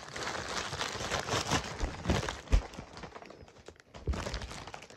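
A package being opened by hand: irregular crinkling and rustling of packaging with small clicks and handling noises, and one sharp thump about two and a half seconds in.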